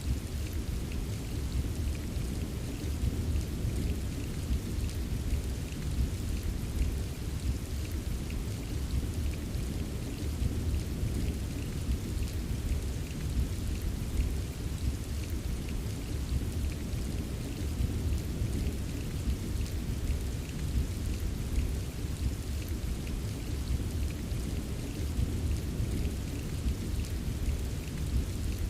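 Steady rain with scattered small drop ticks over a continuous low rumble.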